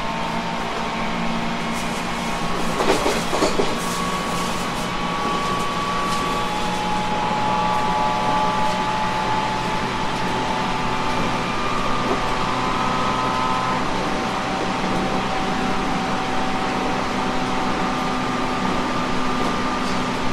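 Running noise inside a JR 719 series AC electric multiple unit under way: a steady jet-like whir and rumble with several steady tones that step up and down in pitch now and then. A cluster of knocks comes about three seconds in.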